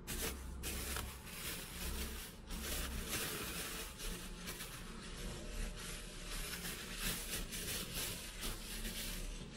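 Thin plastic food bag crinkling and rustling as hands rub salt onto a piece of beef inside it.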